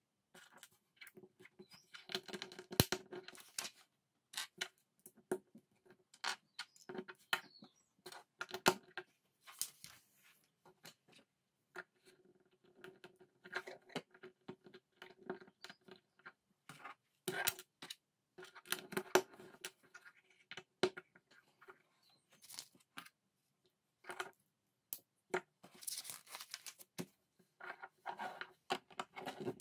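Plastic LEGO bricks being handled and pressed together by hand, making irregular sharp clicks and short bursts of clatter with brief pauses between.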